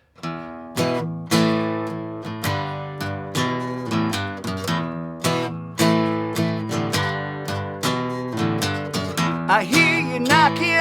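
Acoustic guitar strumming the chords of a song's intro in a steady rhythm, each stroke ringing on. A singing voice comes in near the end.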